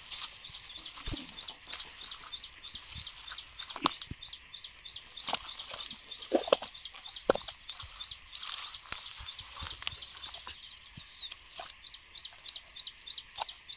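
Outdoor ambience of fast, evenly repeated high-pitched chirping, with a few sharp clicks and knocks scattered through.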